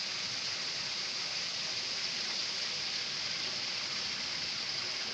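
Steady, unbroken rush of flowing water from a spring, with most of its hiss in the upper range.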